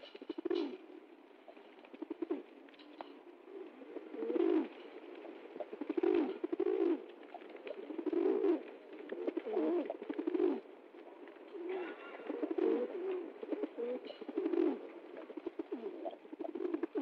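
Rock pigeons cooing: low, throaty coos repeated every second or two.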